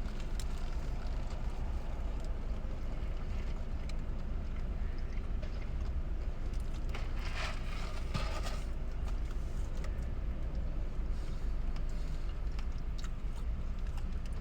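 Steady low rumble of an idling car heard from inside the cabin, with a few brief faint rustles about halfway through.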